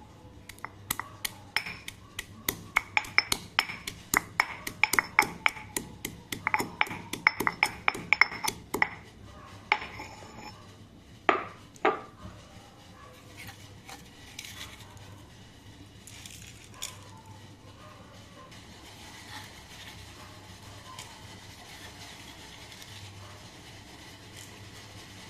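Ginger and coriander seeds being pounded to crush them, rapid sharp knocks about four a second, then a couple of heavier single strikes and a few light taps near the end.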